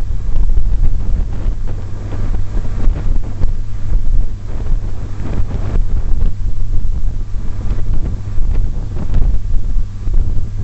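Wind buffeting the microphone in irregular gusts over the steady low drone of a small passenger ferry's engine under way.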